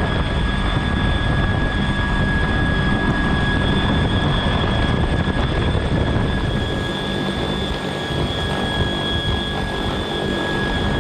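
CH-53K King Stallion heavy-lift helicopter hovering, heard from inside its cabin: steady, loud rotor and turbine noise with two high, steady whining tones running through it.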